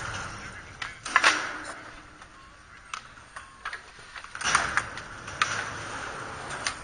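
Skateboard wheels rolling over concrete in two passes, about a second in and about four and a half seconds in, with scattered clacks and taps of boards.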